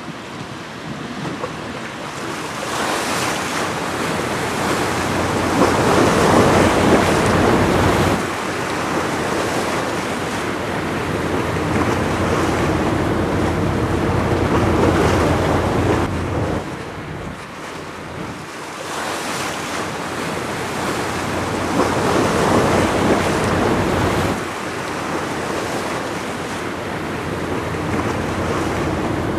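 Wind buffeting the microphone over the rush of the sea. It swells and eases in long gusts every several seconds.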